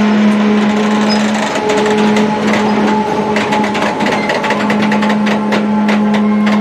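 Freight train of covered hopper cars rolling slowly past, its wheels clicking and clanking over the rails from about a second and a half in, over a steady low hum.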